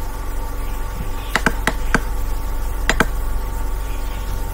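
Computer mouse clicking about five times, some clicks in quick pairs, over a steady electrical hum.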